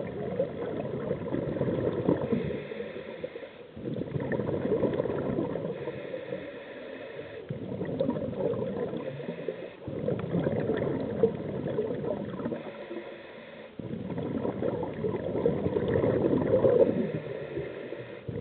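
Scuba diver breathing through a regulator underwater: exhaled bubbles gurgle and rumble for a few seconds, then give way to the quieter hiss of the inhale. The cycle comes about four times.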